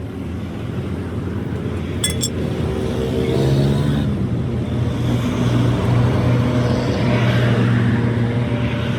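A motor vehicle's engine running, growing louder from about three seconds in and holding steady, over a low rumble. A single sharp metallic clink comes about two seconds in.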